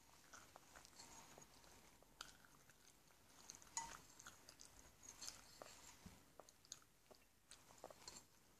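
Faint chewing, with a metal fork clicking and scraping against a ceramic bowl in scattered small, sharp clicks.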